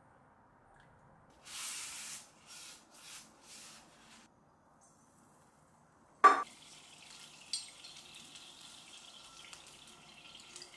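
Several short rushing noises, then a sharp clank about six seconds in, followed by a steady sizzle of food frying in a pan.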